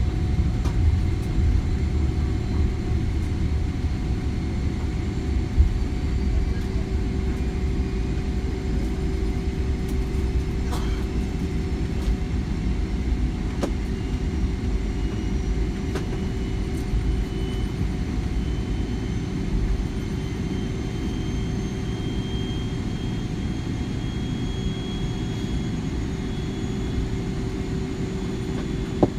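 Airliner cabin noise while taxiing: a steady low engine rumble with a constant hum, and a faint high whine that slowly rises in pitch in the second half. A few light clicks, the sharpest about six seconds in.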